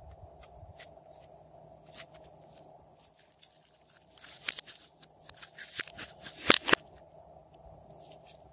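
Blue slime being stretched and pulled apart by hand: a flurry of sticky clicks and crackles about halfway through, loudest near the end of the flurry, after a few scattered clicks.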